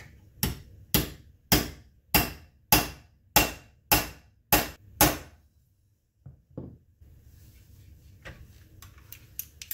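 Hammer taps on a pin punch driving the finger-lever pin home in a Miroku Winchester 1886 action: nine evenly spaced taps a little over half a second apart, then two lighter taps, followed by faint clicks of the parts being handled.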